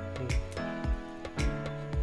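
Background music: held chords over a steady beat of about two strokes a second.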